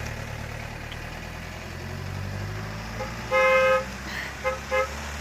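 Vehicle horn tooted as a goodbye: one long toot about three seconds in, then two quick short toots, over a vehicle engine running steadily.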